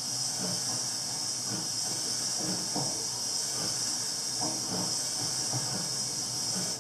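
Steam locomotive sound effect for a C59 from a model-railway sound box: a loud, steady steam hiss over low rumbling and irregular knocks, the hiss cutting off suddenly at the end.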